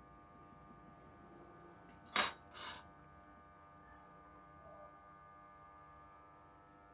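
Steel fork set down on a granite countertop: a sharp metallic clink about two seconds in, followed at once by a second, weaker clatter as it settles, over a faint steady hum.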